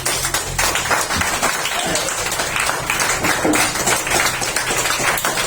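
A group of people applauding, dense and steady clapping throughout, with a few voices faintly mixed in.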